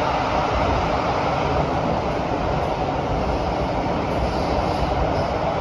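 Kawasaki & CRRC Sifang CT251 metro train running steadily, heard from inside the passenger car: an even, unbroken noise of wheels on rail and the train in motion.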